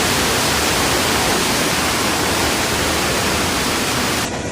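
Loud, steady rush of floodwater, an even hiss with no rhythm, which cuts off abruptly shortly before the end.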